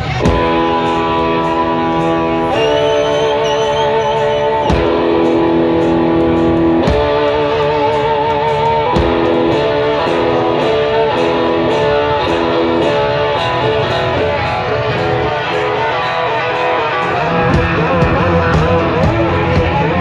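Live band playing: electric guitar holding long notes and chords, some with a wavering vibrato, over a steady drum beat.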